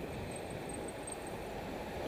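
Steady rush of wind and road noise on a bicycle-mounted camera's microphone while riding along a paved road.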